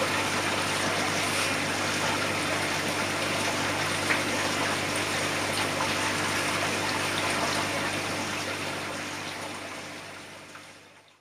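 Aquarium water bubbling and trickling over the steady low hum of its pump. The sound fades out over the last three seconds.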